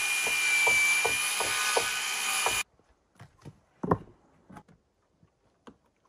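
Power drill driving into wood: a steady motor whine with regular clicking about three or four times a second, cutting off suddenly about two and a half seconds in. A few knocks of wood being handled follow, the loudest about four seconds in.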